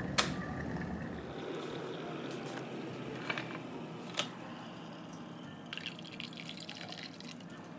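Water poured from an electric kettle into a glass tumbler, filling it. Two sharp clicks come through, one just after the start and another about halfway in.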